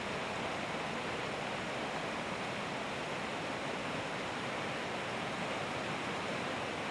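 Whitewater river rushing over rocks: a steady, even noise of rapids.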